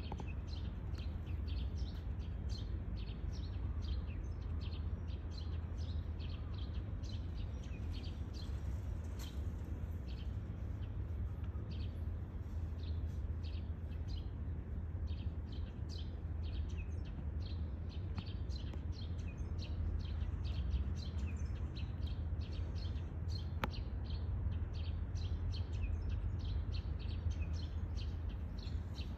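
Small birds chirping in quick, short, high notes, several a second, over a steady low rumble.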